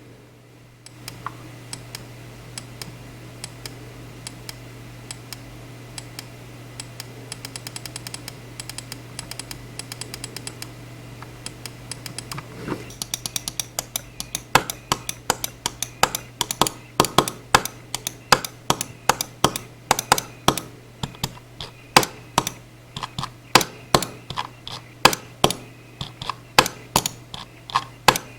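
Logitech G305 wireless gaming mouse: faint, rapid ticking of the scroll wheel for about the first twelve seconds, then louder separate clicks of the mouse buttons, about one or two a second, some in quick pairs. A steady low hum runs underneath.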